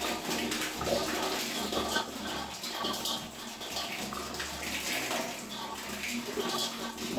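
Water pouring in a steady stream out of the opened bottom drain of an electric storage water heater and splashing below. The tank is being drained to flush out sediment, and the outflow runs cloudy with it.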